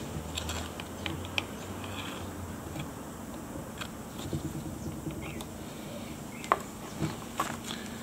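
Scattered light metallic clicks and scrapes from a hand file and a pocket knife's steel scale being worked on a wooden board, with a few sharper ticks about a second and a half in and again near the end.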